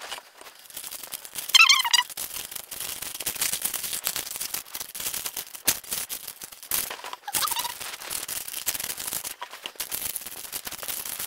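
Baking parchment crackling and rustling in a metal baking tray as hands press and stretch shortcrust dough into it: a dense, uneven run of small crackles and taps. A short high chirp cuts through about two seconds in, and a fainter one about seven seconds in.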